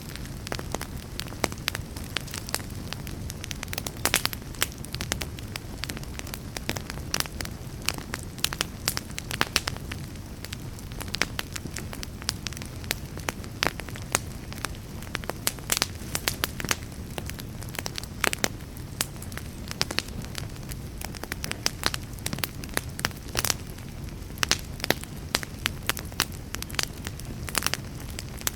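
Wood fire burning in a fireplace: frequent irregular crackles and pops over a steady low rumble of the flames.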